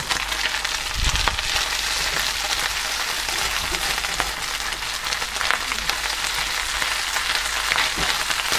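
Minced beef searing in hot oil in a skillet over the highest heat: a steady sizzle with scattered crackles, at the browning stage. A spatula stirs and turns the mince through it.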